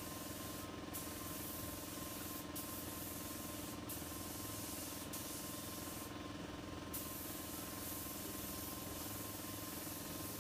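Air-fed gravity-feed paint spray gun hissing as it sprays paint in passes, the hiss breaking off briefly about five times as the trigger is let go between passes. A steady hum runs underneath.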